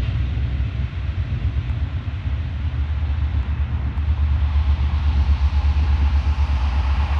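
Low, fluttering rumble of TasRail diesel locomotive 2052 hauling an empty log train, growing a little louder from about halfway through.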